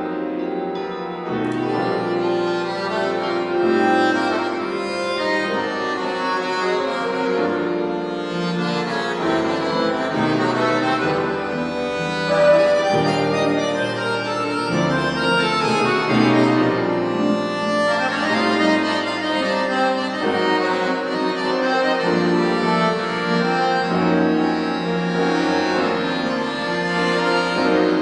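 Instrumental ensemble music played live: held chords with moving melodic notes over them, steady throughout.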